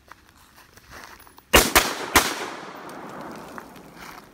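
Three shots from an AR-style semi-automatic rifle, a quick pair and then a third a moment later, each followed by a long decaying echo. This is the Mozambique drill's pattern: two to the body, one to the head.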